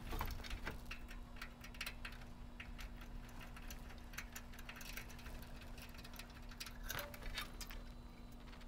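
Light, irregular clicks and ticks of hands handling a small plastic door switch and its wiring inside a metal furnace housing, with a faint steady hum underneath.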